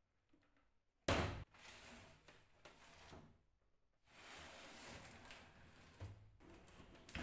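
The wooden lid of an old wooden suitcase is shut with a knock about a second in, then the case is handled on the workbench, with rubbing and scraping of hands and wood and another knock near the end.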